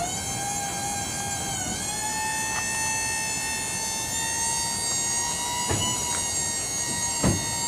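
Electric-hydraulic lift pump on a tilting truck bed whining steadily while the bed is lowered onto the chassis. Its pitch steps up about a second and a half in and then creeps slowly higher. A few knocks come near the end, the loudest a sharp one about seven seconds in.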